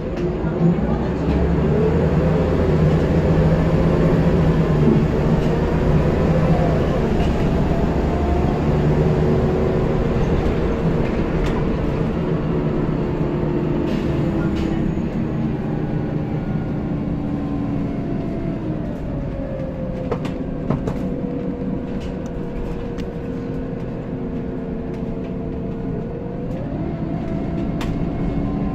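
Scania L94UB single-decker bus heard from inside the saloon while under way: the rear engine's low rumble with a whine from the driveline that rises and falls in pitch as the bus speeds up and slows. It is loudest in the first few seconds, then eases into a long, slowly falling whine, with a few sharp rattles from the body.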